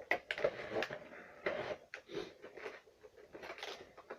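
Plastic packaging crinkling and clicking as a vinyl figure is handled and pushed back into its box, in short irregular rustles and clicks.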